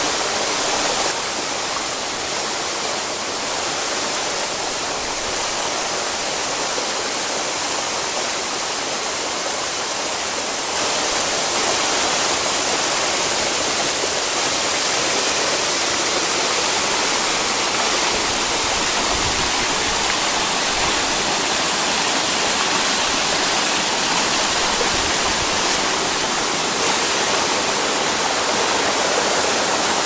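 Steady rushing of a waterfall and its rocky mountain stream, growing a little louder about 11 seconds in.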